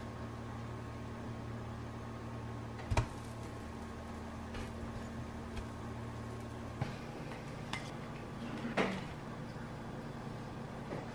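Kitchen utensil sounds: a spatula knocking against a frying pan, with one sharp knock about three seconds in and a few lighter clinks later, likely from plating. A steady low hum runs under them and stops about two-thirds of the way through.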